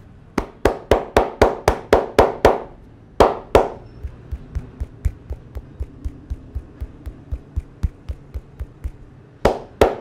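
Rhythmic hand slaps and taps of a barber's neck and shoulder massage on bare skin. A quick run of about nine loud slaps, about four a second, is followed by two more, then a long even run of lighter taps about three a second, and two loud slaps near the end.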